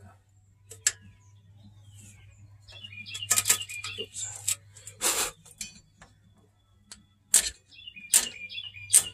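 Metal clinks and knocks from hand tools and parts during work on a van's parking brake assembly: a string of sharp separate strikes, one of them a longer scraping rattle about five seconds in. Birds chirp between them.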